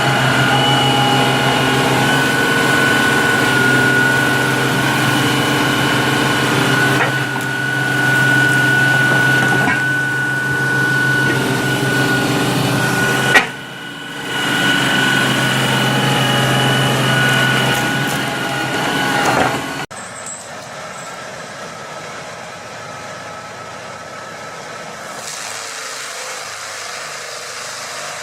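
Heavy machinery engines running steadily with a high whine over a low hum. The sound changes abruptly about 13 seconds in and again about 20 seconds in, and it is quieter and rougher after the second change.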